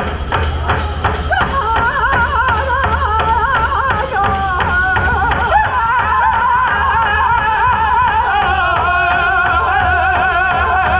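Powwow drum group song: a big drum struck in steady beats, then the singers come in about one and a half seconds in with high-pitched, wavering vocals over the drum.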